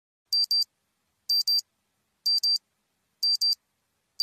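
Alarm beeping: a high-pitched double beep, repeated about once a second.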